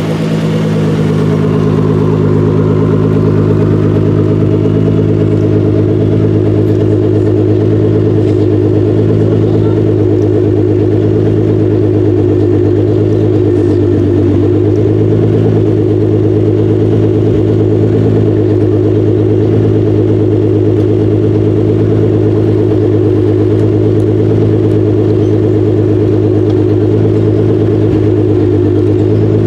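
Nissan GT-R R35's twin-turbo 3.8-litre V6 idling at a steady, unchanging engine speed through its quad exhaust.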